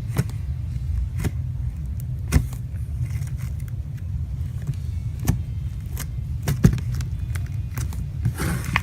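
Bubbly slime being squeezed and stretched by hand, giving irregular sharp pops and clicks, over a steady low rumble.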